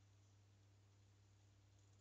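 Near silence: room tone with a steady low hum.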